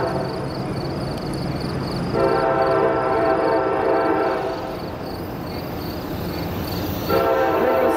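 Approaching diesel freight locomotive sounding its multi-chime air horn in long blasts: one ending just as it begins, another of about two seconds starting two seconds in, and a third starting near the end, over the low rumble of the engine.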